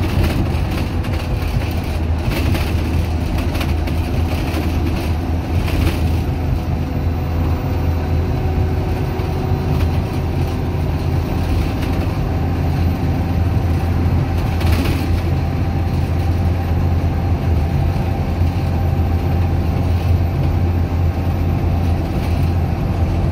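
Dennis Dart SLF bus's Cummins diesel engine running at a steady pitch, heard from inside the bus, with a low drone and a few brief rattles.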